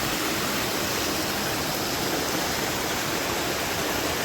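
Steady rushing of a river's flowing water, an even, unbroken roar.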